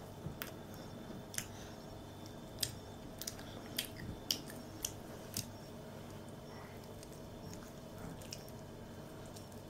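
A small child chewing and smacking her lips over a piece of apple cake: a run of sharp little mouth clicks over the first five seconds or so, over faint steady room hum.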